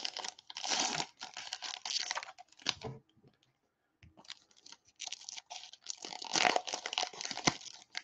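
Crackly crinkling and tearing of a baseball card pack's wrapper as it is ripped open and handled, in rapid bursts, with a pause of about a second around the middle.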